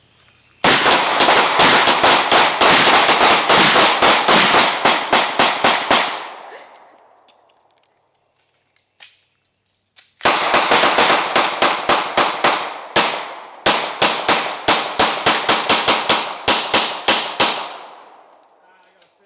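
Handguns firing rapid strings of gunshots, several shots a second, in two long volleys with a lone shot between them; each shot is followed by a short echo.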